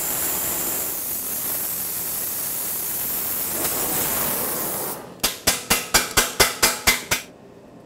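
Acetylene torch flame hissing steadily as it heats a rusted exhaust-manifold nut. About five seconds in the hiss stops and a quick run of about ten sharp metallic impacts follows, as the socket and extension on the heated nut work to break it free.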